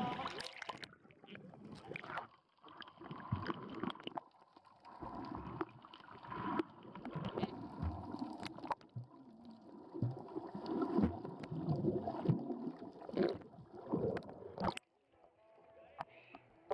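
Seawater sloshing and gurgling against a waterproof camera held at and just under the surface: muffled, irregular churning with small knocks. It drops away sharply near the end.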